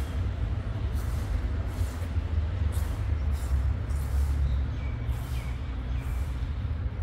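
Wind rumbling and buffeting on a phone microphone, with footsteps on stone paving slabs about once every second.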